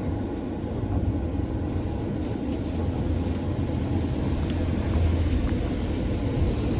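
A moving bus heard from inside, with its engine and road noise making a steady low rumble.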